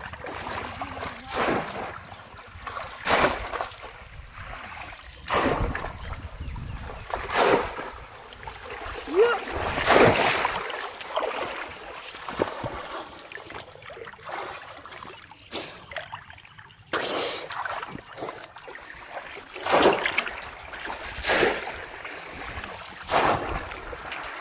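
Repeated water splashes in a shallow river, one sharp splash every two seconds or so: a bamboo polo fish trap being plunged down into the water.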